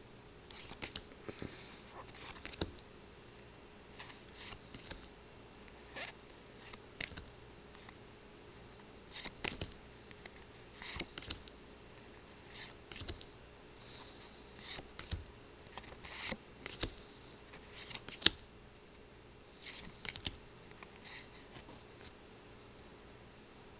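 Pokémon trading cards sliding against each other as a hand-held stack is flipped through: short, irregular swishes and flicks of card stock, with one sharper snap about three quarters of the way through.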